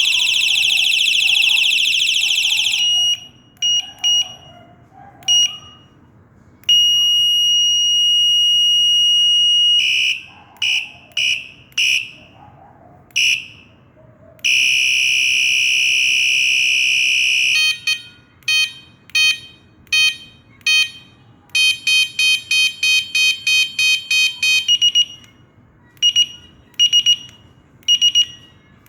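Electronic horn of a combined bicycle headlight and horn, stepping through its different tones: a high-pitched warble, a few short beeps, a long steady beep, a second steady buzzing tone, then runs of rapid beeps and slower evenly spaced beeps near the end.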